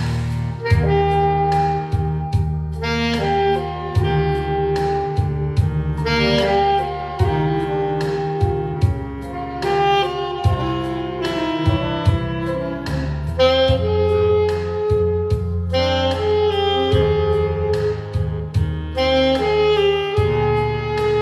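Saxophone playing a melody of held notes over an accompaniment with a steady drum beat and bass.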